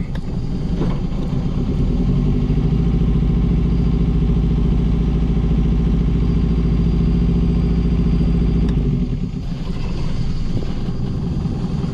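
Hire cruiser's inboard diesel engine running steadily under way, with a low, even drone; the engine note strengthens about a second and a half in and eases back again near nine seconds.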